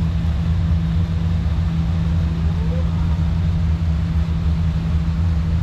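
A drag boat's racing engine idling on its trailer with a steady low rumble, running for a warm-up just after being fired up.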